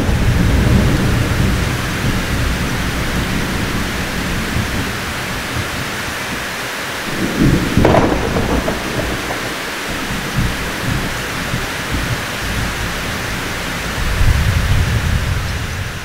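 Thunderstorm: thunder rumbling over steady rain. A rumble fades over the first few seconds, a sharper thunderclap comes about eight seconds in, and another rumble builds near the end.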